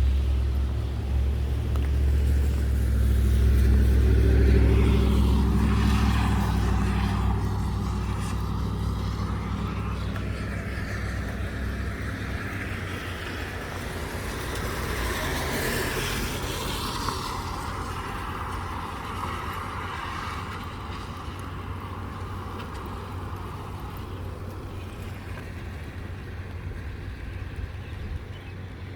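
Low, steady engine drone, loudest about four seconds in and then slowly fading, with a rushing noise that swells and dies away around the middle.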